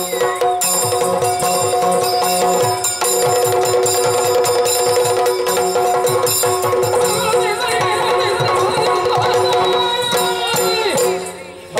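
Yakshagana percussion: the chende and maddale drums beat a fast, dense rhythm over a steady held drone, with metallic jingling above. A wavering melodic line comes in about seven seconds in, and the music thins briefly just before the end.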